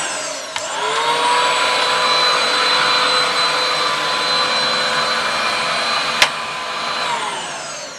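Hoover Turbo Power 700-watt vacuum cleaner switched on and running, its motor settling to a steady whine over a rushing airflow. About six seconds in there is a sharp click, then the whine falls away as the motor winds down.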